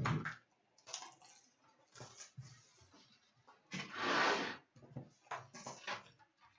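Packaging being opened by hand: the cardboard box and foil trading-card packs crinkle and rustle, with one longer, louder tear of wrapper about four seconds in.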